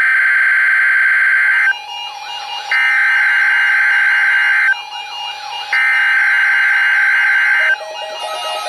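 EAS SAME digital header of a Required Weekly Test on NOAA Weather Radio: three bursts of data tones, each a little under two seconds long and about a second apart. A steady lower tone sounds beneath from about two seconds in.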